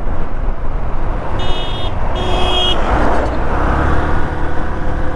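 Motorcycle riding along a road, heard from a chest-mounted camera: steady engine rumble and wind rush. Two short high beeps come about a second and a half in.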